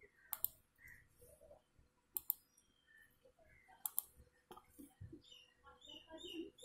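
Three faint computer mouse clicks, about two seconds apart, each a quick press-and-release double click-sound: clicks on an installer's checkbox and Finish button.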